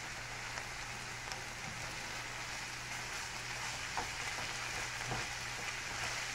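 Longaniza sausage and mushrooms sizzling steadily in a nonstick frying pan as a plastic spatula stirs them, with a couple of light knocks of the spatula against the pan a few seconds in.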